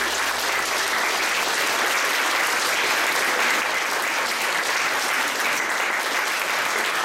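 Audience applauding, steady clapping from a full room of listeners.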